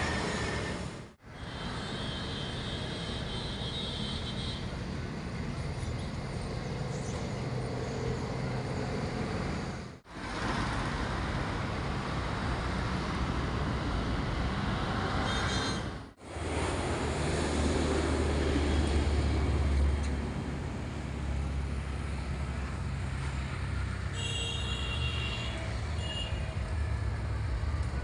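Steady outdoor background noise with a low rumble, broken three times by brief sudden drop-outs.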